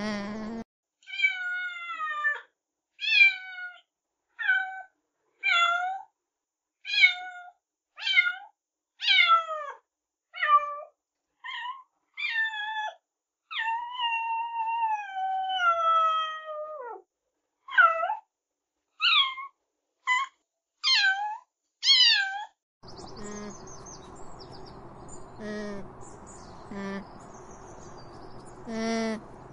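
A cat meowing over and over, about eighteen separate high meows, most falling in pitch, one of them drawn out longer. After about twenty-three seconds the meows stop and a steady outdoor background hiss takes over, with short repeated calls in it.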